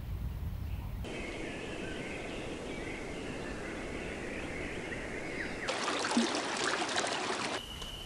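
Spliced outdoor nature ambience: a brief low rumble, then faint bird calls over a steady hiss, then about two seconds of dense crackling patter, with a steady high tone coming back near the end.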